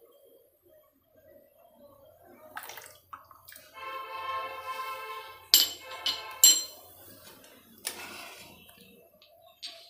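Steel ladle stirring boiling milk in a steel pan, with liquid sloshing and several sharp metallic clinks of ladle against pan around the middle. A held, pitched tone runs for about a second and a half just before the clinks.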